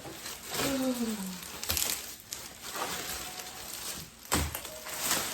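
Mannequin packaging being torn open and handled: irregular rustling and crinkling, with a heavy thump a little before the end.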